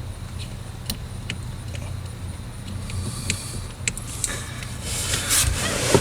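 A few sharp small clicks, then scraping, as the hinge pin is pushed through the hinge of the shifter's plastic selector button, over a low steady hum.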